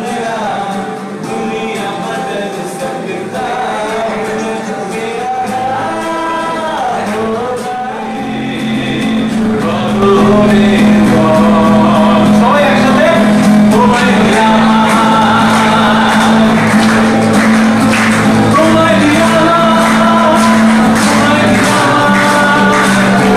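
A man singing to a strummed acoustic guitar through microphones. About ten seconds in it becomes louder, as another male singer with guitar takes over, with a steady deep note under the voice.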